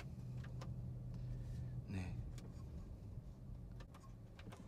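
Low, steady engine hum heard from inside a vehicle cab while driving, fading after about two and a half seconds, with a few light clicks.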